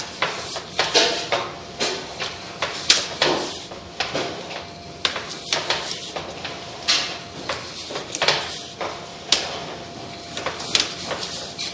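Sewer push camera's cable being pulled back by hand and fed into its reel, giving irregular clunks, scrapes and rattles about once or twice a second.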